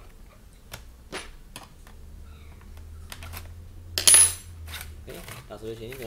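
Laptop DVD drive being slid out of its bay: light clicks and scrapes of plastic and metal, with one sharp metallic clink that rings briefly about four seconds in.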